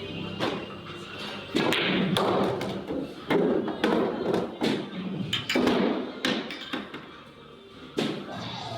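Billiard balls clicking and knocking: a series of about a dozen sharp knocks from the cue striking the ball, balls colliding and hitting cushions and pockets during a follow-shot drill, with background music.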